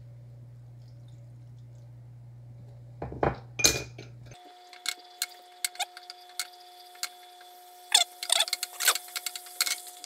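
Wooden spatula knocking, tapping and scraping in a ceramic-coated frying pan as a sauce is stirred: a few knocks about three seconds in, then many quick clicks and clinks in the second half, over a steady hum whose pitch changes abruptly partway through.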